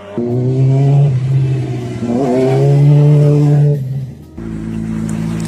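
Honda CBR600RR's inline four-cylinder engine being revved: the pitch climbs and is held up twice for about a second and a half each, with a brief dip between. About four and a half seconds in it drops back to a lower, steady note.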